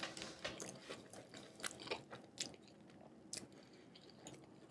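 A person chewing a mouthful of fried chicken topped with marinara, pepperoni and cheese, with faint, irregular soft crunches that thin out in the second half.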